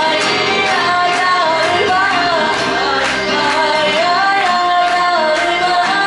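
A woman singing a pop song live into a handheld microphone over a backing track played from a laptop, with a steady beat of about two a second.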